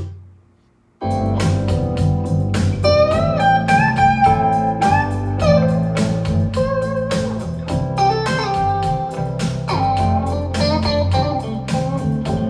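Guitar-led music with a strong bass line, played back through a Bose speaker in a sound test. The music fades out at the start, stops briefly, and comes back in about a second in.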